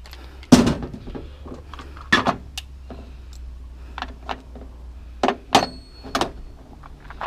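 Scrap metal being handled and loaded: a string of separate clanks and thumps, about seven in all, the loudest about half a second in, over a steady low hum.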